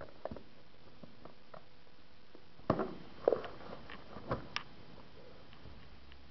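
Handling of a smartphone's box and packaging: scattered light taps and knocks, a few louder ones near the middle, over a faint steady hiss.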